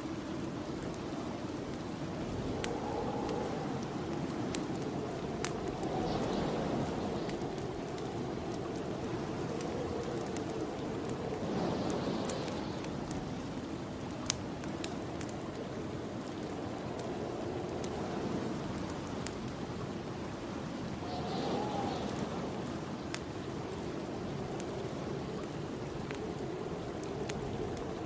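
Steady snowstorm wind that swells in gusts every several seconds, with a wood fire crackling in sharp, scattered pops throughout.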